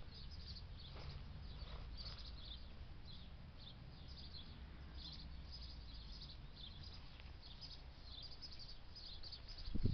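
Small birds chirping in short, high notes, repeated irregularly about twice a second, over a steady low rumble, with a loud bump at the very end.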